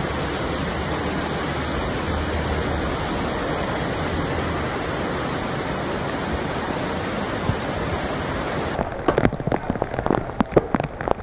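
Floodwater rushing steadily through a street. About nine seconds in it changes to rain, with drops hitting close by as irregular sharp taps.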